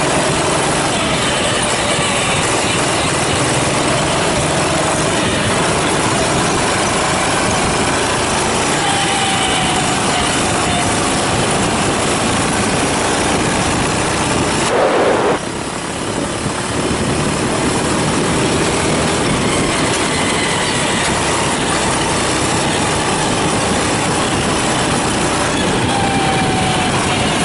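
Go-kart engines running on a track, the engine note rising and falling as the karts accelerate and slow. About halfway through there is a brief louder burst, after which the level drops a little.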